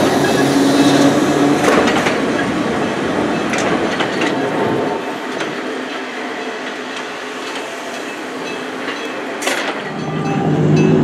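Enoden (Enoshima Electric Railway) electric train running on the rails, with a few sharp clacks. Its low rumble drops away about halfway through and comes back near the end.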